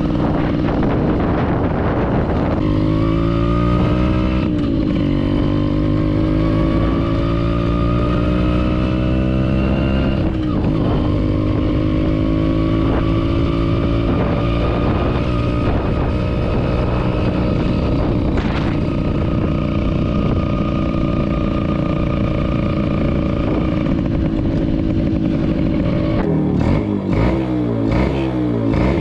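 HD3 cafe racer motorcycle engine under way. Its pitch rises twice in the first ten seconds as the bike accelerates, then holds steady at cruising speed. Near the end it drops to an uneven idle as the bike comes to a stop.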